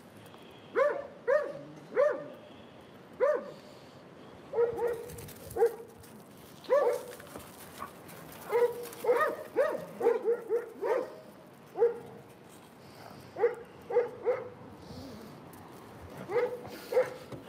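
Dogs barking repeatedly in play, in short runs of one to four barks every second or two.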